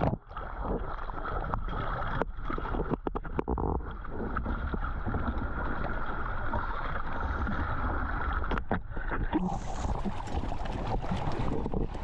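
A boat moving over open water, a steady rumble with wind on the microphone; a higher hiss joins about nine and a half seconds in.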